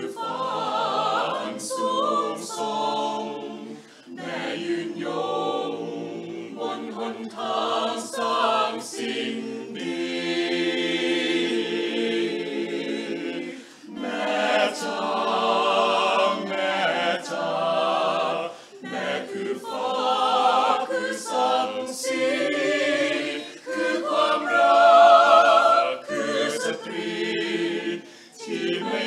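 Mixed-voice choir of men and women singing a cappella in harmony, in sustained phrases with short breaks between them.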